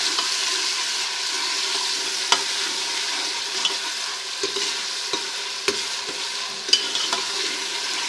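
Sliced onions frying in hot ghee in a cooking pot: a steady sizzle, with a spoon scraping and knocking against the pot now and then as they are stirred. The onions are at the stage of being browned lightly.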